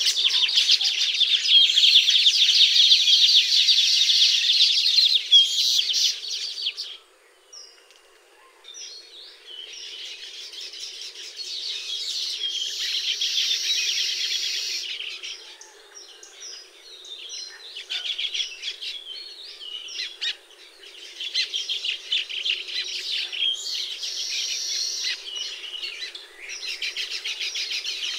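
Weaver birds chattering in dense, rapid, high-pitched runs. The loudest spell is at the start; it breaks off about seven seconds in, then the chatter returns more softly in spells.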